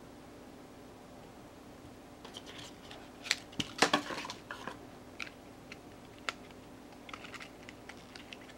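Handling noise from phone-box packaging: sharp clicks, taps and crinkles of plastic wrap and cardboard trays as packaged earphones and cables are lifted out and turned in the hands. It starts about two seconds in, with the loudest cluster of clicks just before four seconds in and scattered taps after.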